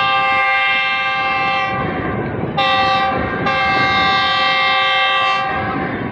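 Diesel locomotive's multi-note air horn sounding in two long blasts as the train approaches, the second starting about two and a half seconds in and fading out before the end. A low rumble from the moving train runs underneath.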